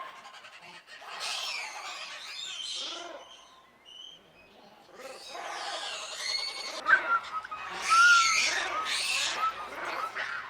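Monkeys calling: several bursts of high-pitched cries that rise and fall in pitch, loudest near the end.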